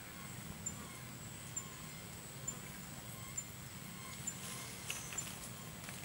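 Faint forest ambience: a low steady hum with a soft, high tick repeating about once a second.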